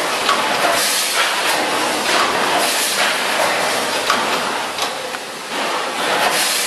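Vertical form-fill-seal packaging machines running: a steady hiss of machinery with many short, sharp bursts at uneven spacing as the machines cycle.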